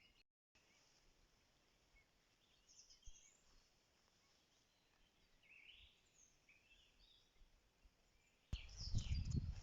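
Faint, scattered chirps and short calls of small birds. Near the end a sudden low rumble cuts in and becomes the loudest sound.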